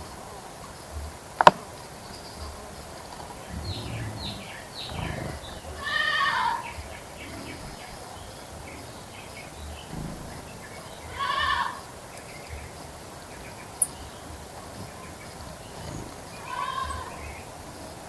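An animal calling three times, about five seconds apart, each a short drawn-out cry. A sharp click comes about a second and a half in.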